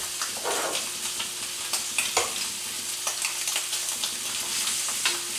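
Beef short ribs sizzling steadily as they sear in butter in a cast-iron skillet on high heat, with a few light clicks of metal tongs against the pan.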